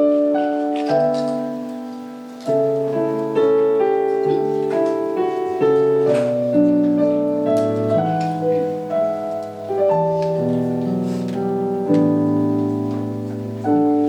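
Solo piano playing slow, sustained chords as the opening of a song, a new chord struck every second or so.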